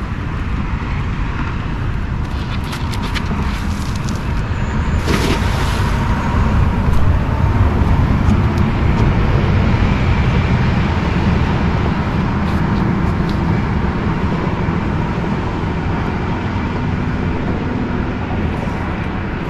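Low rumble of a road vehicle passing close by, swelling to its loudest about halfway through and then fading. A single sharp knock sounds about five seconds in.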